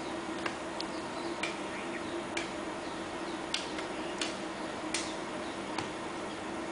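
Hand hoes chopping into hard, dry soil: sharp irregular strikes about once a second, eight in all, over a steady background hiss.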